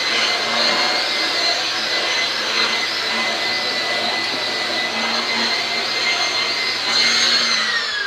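Shark NV801UKT Duo Clean lift-away vacuum cleaner running with a steady high whine and rushing airflow while its pet tool is pushed over carpet. Near the end it is switched off and the motor winds down, its whine falling in pitch.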